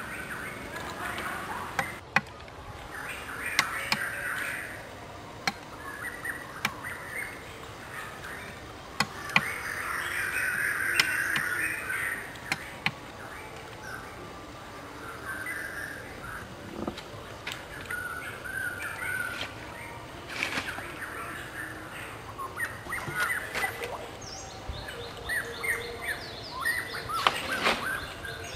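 Machete blade scraping and shaving a bamboo strip, with sharp taps and clicks as the blade strikes the bamboo, while birds call in the background.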